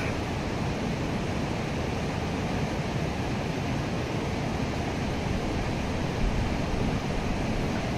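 Steady rushing of a fast-flowing stream.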